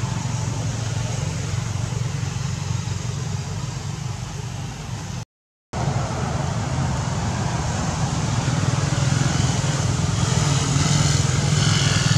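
A steady low motor drone, like a vehicle engine running, that cuts out completely for about half a second around five seconds in.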